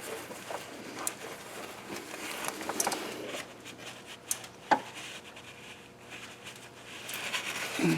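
Hand work on engine parts: rag rubbing and rustling with scattered light clicks of parts and tools, one sharper click about halfway through and louder rustling near the end.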